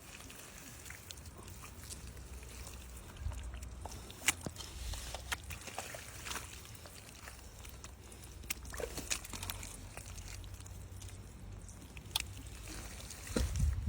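Water sloshing and splashing in scattered bursts, with a few sharp clicks and a steady low rumble underneath.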